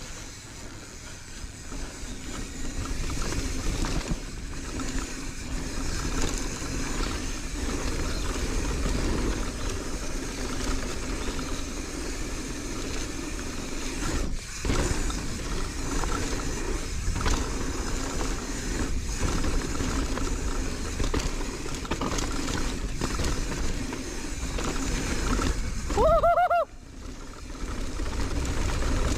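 Marin San Quentin mountain bike ridden fast on a dirt trail: steady wind rush over the camera microphone and tyre rumble, with scattered knocks as the bike hits bumps. A brief squeal rises and falls near the end.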